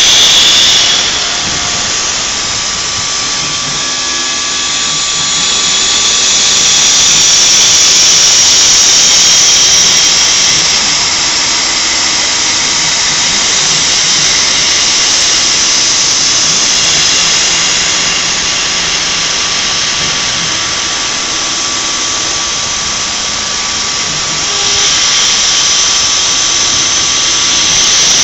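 CNC machine running: a loud, steady hissing roar with a thin, steady whine, swelling louder from about six to ten seconds in and again near the end.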